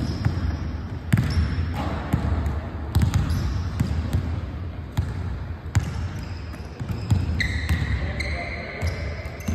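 Basketballs being dribbled and caught on a hardwood gym floor, sharp thuds at irregular intervals echoing in a large hall, with sneakers squeaking on the court, a longer squeak near the end.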